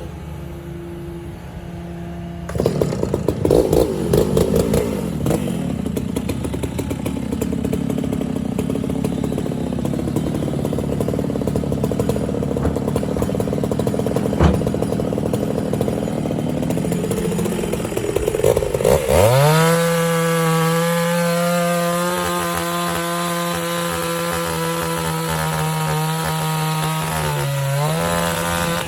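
Chainsaw cutting wood. It runs rough and loaded in the cut, then from about two-thirds through it holds a steady high-pitched whine at full throttle. Near the end it dips briefly and lets off.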